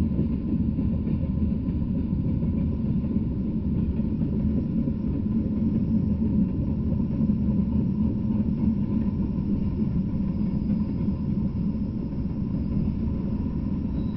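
Freight train of tank cars rolling past close by, a steady low rumble of steel wheels on the rails.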